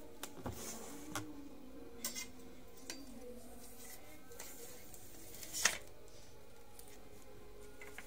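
Light clicks and knocks as a golok machete is handled and swung, with one louder sharp knock about five and a half seconds in, over a faint steady hum.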